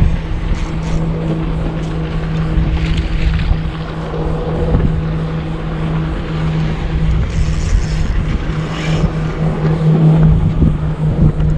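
A steady low motor hum over a gusty rumble.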